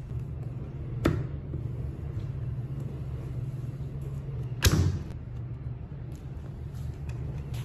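Two sharp knocks, about three and a half seconds apart with the second louder, as a plastic kids' scooter is handled and set on a tabletop, over a steady low hum.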